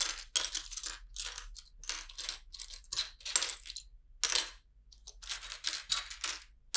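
Loose plastic LEGO bricks clattering and clicking against each other as a hand rummages through a pile of pieces, a quick irregular run of clicks with a short pause about five seconds in.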